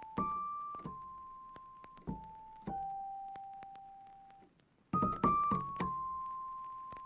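Background music: a slow melody of single piano notes, each struck and left to ring and fade, with a brief pause about four and a half seconds in before a quicker run of notes.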